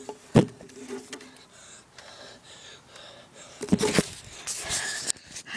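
Knocks and rustling of a phone being handled close to the microphone: a sharp knock about half a second in, and a cluster of knocks and rustles near the end, with a breathy hiss.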